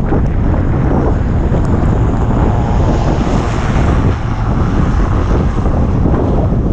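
Loud, steady wind rumble buffeting the camera microphone during a fast downhill ride on a bicycle, mixed with the hiss of Kenda K-Rad tyres rolling through water on wet asphalt.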